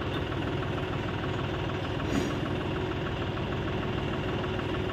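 John Deere 5042 tractor's three-cylinder diesel engine idling steadily.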